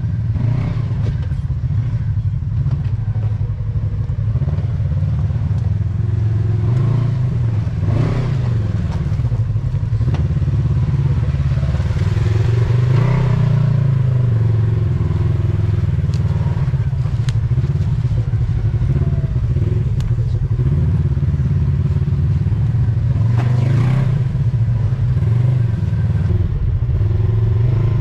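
Side-by-side UTV engine running under changing throttle while driving over rough ground, with a few knocks and clatter from the machine over the terrain.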